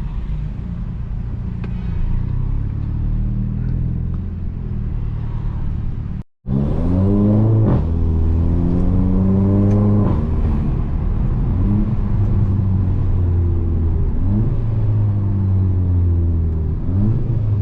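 Volkswagen Jetta 2.0 TSI turbocharged four-cylinder with a full straight-through exhaust, accelerating hard. The engine note climbs in pitch and drops back several times as the gearbox shifts up. The sound cuts out for a moment about six seconds in.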